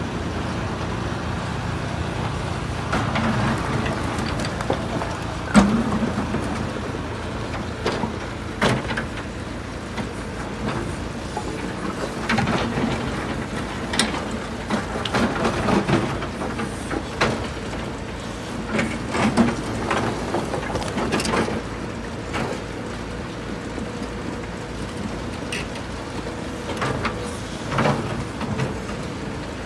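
Diesel engines of a Cat 312F excavator and an Arjes Impaktor 250 mobile impact crusher running steadily, with repeated sharp knocks and clatter of broken concrete slabs as the excavator's grapple works the pile. The loudest bang comes about five seconds in.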